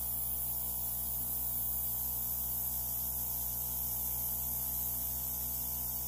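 Steady hum of a small airbrush compressor with a faint, even hiss of air from the airbrush nozzle as it blows alcohol ink across paper.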